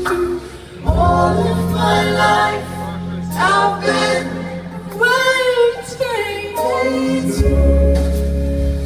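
A woman singing a slow melody live, backed by an acoustic band playing held low chords.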